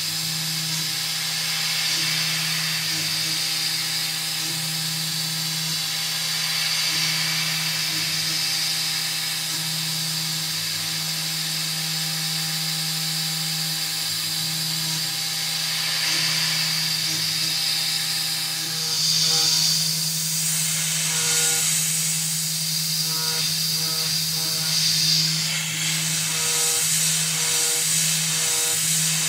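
Tormach 440 CNC mill's spindle running while a small end mill cuts an aluminum part, over a steady hiss of mist coolant. About two-thirds of the way in, the cutting tone breaks into short repeated pulses.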